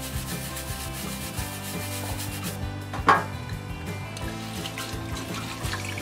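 Stiff brush scrubbing a plastic washing-machine filter cap: a steady rubbing scrape, with one sharper knock about three seconds in.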